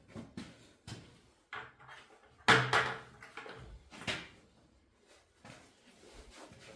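A few knocks and clunks from things being handled and set down, the loudest about two and a half seconds in and another about four seconds in.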